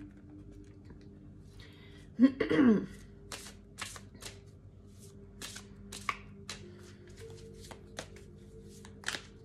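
A deck of oracle cards shuffled by hand: a run of quick, irregular card flicks and riffles, several a second. A short vocal sound comes about two seconds in, and faint steady background music runs underneath.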